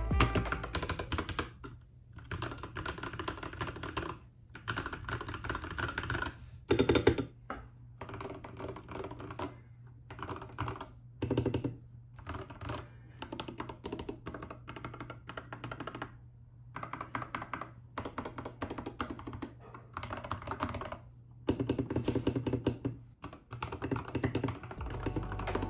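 Typing on a mechanical keyboard fitted with matcha-themed keycaps: quick runs of key clacks broken by short pauses.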